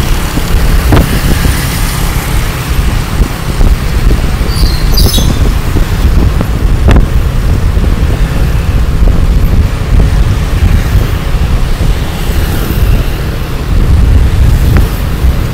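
Motorbike riding in traffic, heard from the rider's own bike: a steady, loud low rumble of wind on the microphone and engine and road noise, with a few brief knocks.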